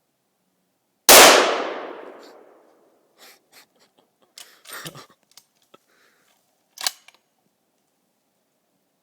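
A single loud rifle shot from a Ruger .308, ringing and echoing away over about a second and a half. It is followed by a scatter of quiet metallic clicks and clacks, with one sharper clack near the end.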